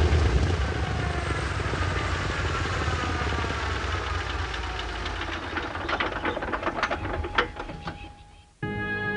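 A Catalina flying boat's radial engines spinning down after shutdown: a low hum with a whine that falls steadily in pitch, then a run of slowing clicks and knocks that fade out as the propellers come to a stop.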